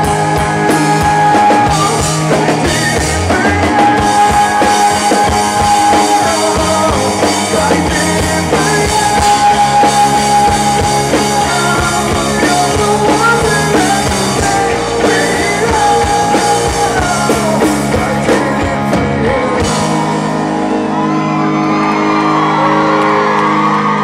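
Live rock band playing, with a male lead singer over electric guitars, bass and drum kit. About twenty seconds in the drums and bass stop and held chords ring on, as the song reaches its end.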